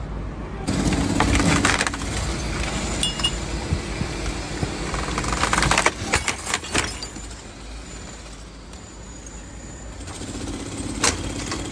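Broken glass, metal window frames and rubble clattering and knocking as a damaged window is handled, in bunches of sharp knocks with one hard knock near the end. Heavy machinery runs steadily underneath.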